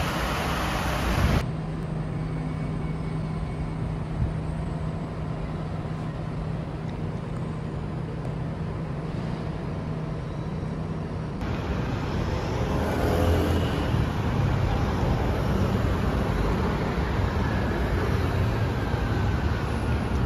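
A brief dense hiss that cuts off about a second in, then a steady hum with a constant low tone. About eleven seconds in, that gives way to busy road traffic, with vehicles passing close by on a multi-lane street.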